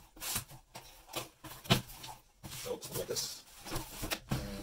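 Cardboard shipping carton being handled and opened: scraping and rustling of cardboard flaps with a series of irregular sharp knocks and taps, the loudest about a second and a half in.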